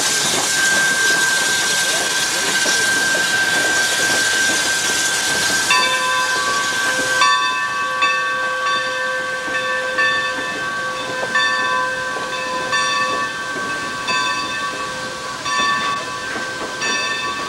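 Steam locomotive hissing loudly as it vents steam, the hiss cutting off about seven seconds in. After that, a set of steady high ringing tones that break off and resume about once a second as the train rolls by.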